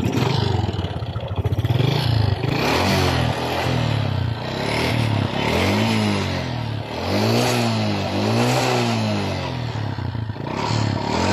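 Honda XRM 125's single-cylinder four-stroke engine running just after starting, the throttle blipped over and over from about three seconds in so the pitch rises and falls. A hard mechanical clatter rides on it, a noise that the mechanic identifies as piston slap.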